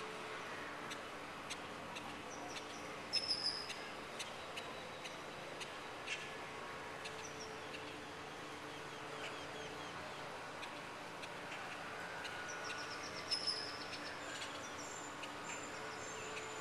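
Birds chirping, with two louder bursts of quick repeated high notes, about three seconds in and again near the end, over a steady hum.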